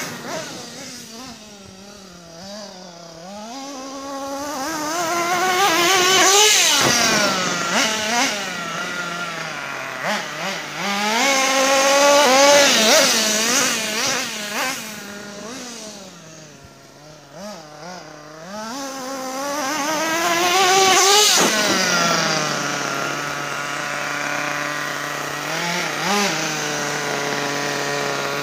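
Kyosho Mad Armour radio-controlled monster truck's small engine revving up and down over and over as the truck is driven, fading and swelling with distance, then settling to a steady idle about three quarters of the way through.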